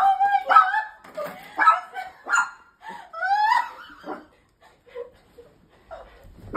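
Small white dog whining and yipping excitedly, a run of high, wavering cries over the first four seconds that then dies down to a few faint sounds.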